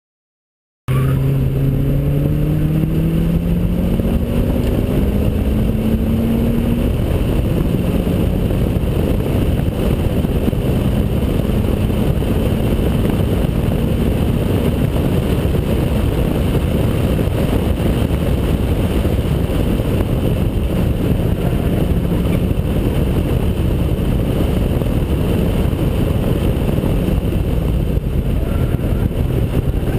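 2003 Honda Accord Type S's 2.4-litre four-cylinder engine, with short ram intake and custom exhaust, driven hard on track: after about a second of silence the revs rise in two pulls, then steady wind and road rush dominates over the engine.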